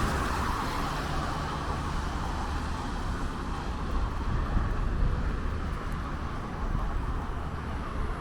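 Steady city traffic noise: a wash of car noise with a low rumble, slightly louder at the start and easing off.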